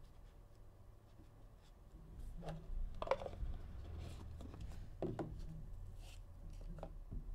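Faint handling of the card boxes and packaging on a table: scattered rustles and light knocks, starting about two seconds in.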